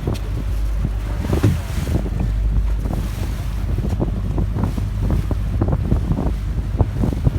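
Wind buffeting the microphone in irregular gusts over the steady low drone of a boat's engine while cruising on a lake.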